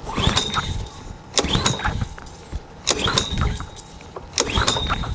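Honda GCV160 small engine being pull-started by its recoil starter: four hard pulls about a second and a half apart, each with the whirring zip of the rope and the engine cranking over without catching. The engine is not firing, which the owner puts down to a carburetion problem.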